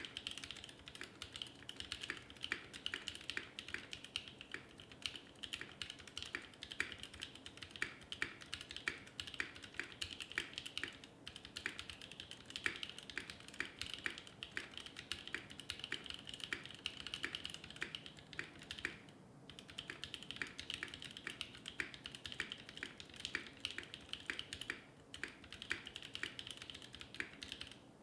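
Fast, continuous typing on a custom 60% mechanical keyboard with NovelKeys Cream linear switches, a 3D-printed PLA plate, foam-dampened epoxy resin case and GMK keycaps: a dense run of clacky keystrokes, with brief pauses about 11, 19 and 25 seconds in.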